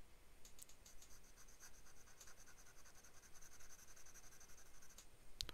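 Faint scratching of a 14k gold fountain pen nib on paper as it draws broad, wet strokes, with a small click near the end.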